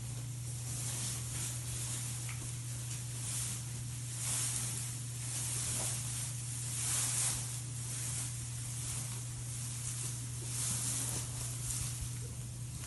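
Beaver sneezing: soft hissy bursts, three of them a few seconds apart, over a steady low hum.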